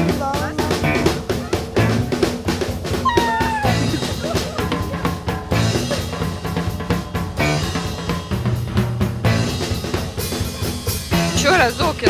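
Background music with a steady drum-kit beat over a bass line.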